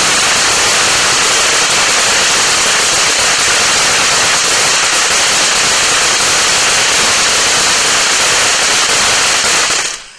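Winda Snow Cone P3088 ground fountain firework spraying sparks: a loud, steady hiss thick with crackling, which dies away sharply about ten seconds in as the fountain burns out.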